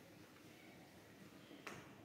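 Near silence: room tone, with one faint click late on.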